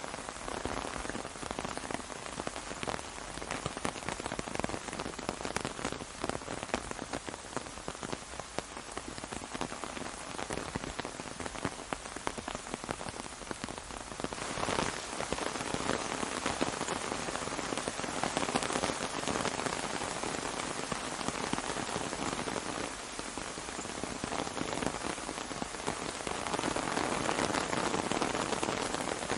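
Steady rain pattering on an umbrella, a dense hiss of many small drop ticks, growing heavier about halfway through and again near the end.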